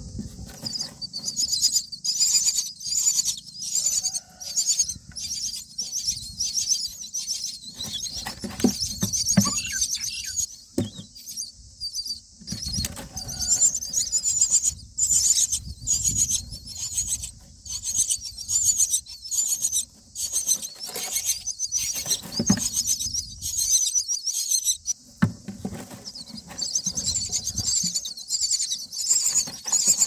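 Common myna nestlings begging: rapid, high-pitched squeaky calls repeated in quick runs, the chicks calling to be fed. Low rustling and a few knocks of movement in the wooden nest box sit underneath.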